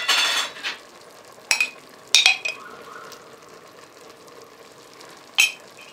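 A spoon scraping and knocking against the Polaris multicooker's non-stick inner bowl as tomato paste is spooned in: a scrape at the start, then three sharp taps that ring briefly. Underneath is faint sizzling from the food in the hot bowl.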